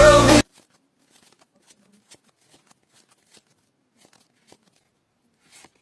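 Pop music with singing that cuts off suddenly about half a second in, followed by faint scattered clicks and rustles of Pokémon trading cards being handled, with a slightly louder rustle near the end.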